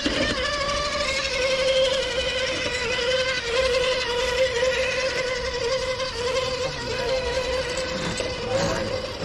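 Electric motors and geared drivetrains of RC rock crawlers whining steadily under throttle as they climb concrete steps, the pitch wavering slightly as the load changes.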